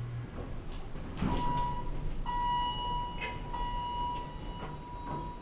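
A hydraulic passenger elevator arriving at a floor: the car's low running hum cuts off right at the start as the car stops, then the cab doors slide open with clicks and knocks. A steady high-pitched tone starts about a second in and keeps sounding.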